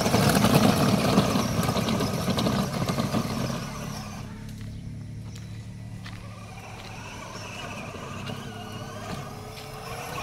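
Battery-powered children's ride-on jeep driving through mud and puddle water, its electric drive motors and gearboxes giving a steady low hum. The first few seconds are louder and rougher; after that the hum carries on more quietly.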